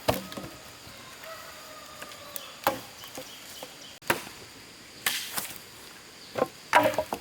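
Bricks being set down and stacked, clacking against one another in separate sharp knocks about a second apart, with a quicker cluster near the end.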